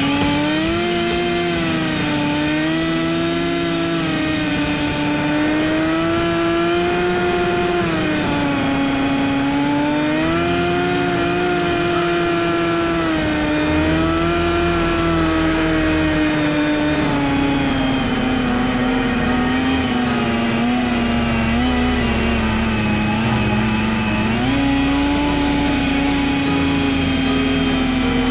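Snowmobile engine running under way, heard from the rider's seat, its pitch rising and falling gently with the throttle and dipping lower for a few seconds before picking up again near the end.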